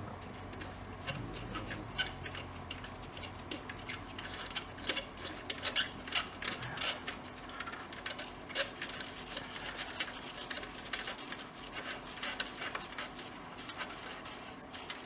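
Ratchet wrench clicking in irregular runs of quick ticks as the turbocharger bolts are backed out.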